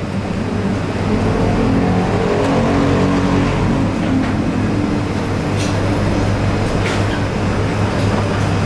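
Steady drone of welding-shop machinery with a strong low hum, and a few sharp clicks partway through.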